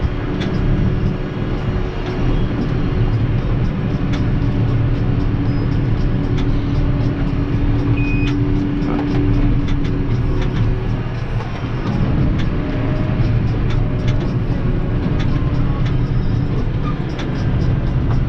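Farm tractor engine running steadily with a low rumble while its trailer of rapeseed is tipped and unloaded.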